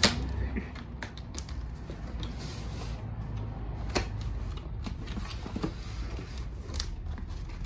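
A cardboard shipping box being cut open with a utility knife: scattered clicks and scrapes of the blade through packing tape and cardboard. There is a sharper click at the start and another about four seconds in, over a low steady hum.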